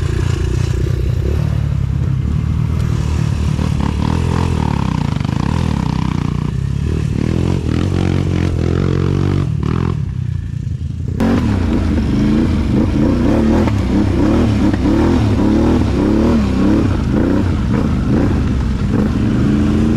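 Honda 200X's engine pulling away up a muddy trail, with clatter from the machine over rough ground. About eleven seconds in the sound changes abruptly to a nearer ATV engine, the Outlander's, revving up and down again and again as it rides a rough trail.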